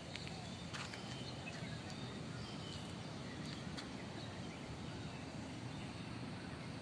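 Outdoor park ambience: a steady low noise with faint, scattered bird chirps and a couple of light clicks in the first second.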